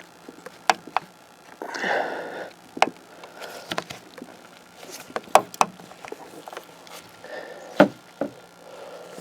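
Irregular sharp clicks and knocks of a plastic license plate light housing and a screwdriver tip as the housing is pushed and pried into a tight fit in the bumper, with a short scrape about two seconds in.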